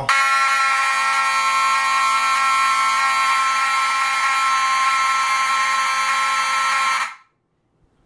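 Mechanical fire alarm horns, a Wheelock 7002T and a Faraday 6230 wired together on two 9-volt batteries, sounding a loud, steady buzzing tone. The tone turns rougher about three seconds in and cuts off suddenly about a second before the end.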